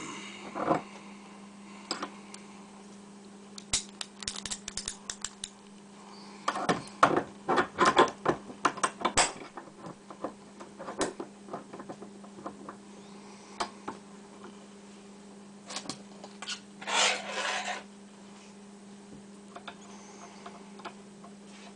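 Small metallic clicks, ticks and scrapes of lockpicking tools, a tension wrench and a short hook, working in the keyway of a 7-pin Best small-format interchangeable-core padlock. The clicks come in irregular clusters, with a scrape lasting about a second about two-thirds of the way through, over a steady low hum.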